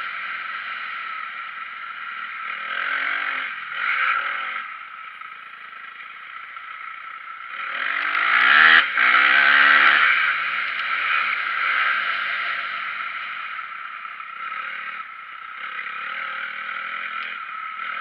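Dirt bike engine revving up and falling back with the throttle as it is ridden around a motocross track. The loudest surge comes about eight seconds in, and a shorter one about four seconds in.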